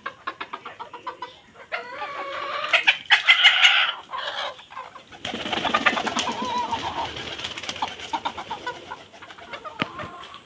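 Domestic chickens clucking and calling in short repeated notes, loudest about three seconds in, with a steady background noise under the calls from about five seconds in.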